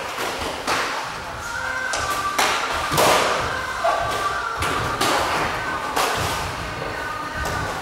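Kickboxing strikes, gloved punches and kicks, thudding irregularly on pads and gloves, several pairs hitting at once, with echo from the hall.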